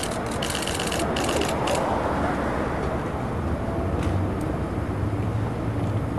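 Rapid runs of camera shutter clicks during the first two seconds, over steady street traffic noise; a vehicle's engine hums low through the second half.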